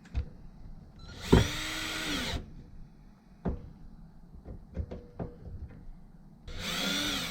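Power drill running in two bursts of about a second each, spinning up and winding down each time, driving the fuel filter's screws in; a few short knocks of tools between the bursts.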